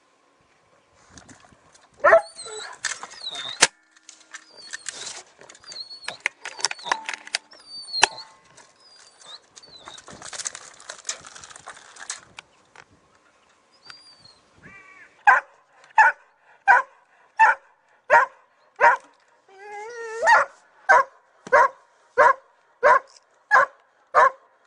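An animal calling over and over in a steady series of short, loud calls, about three every two seconds, starting about fifteen seconds in. Before that there are scattered rustles and clicks, a few high chirps, and one sharp loud knock about two seconds in.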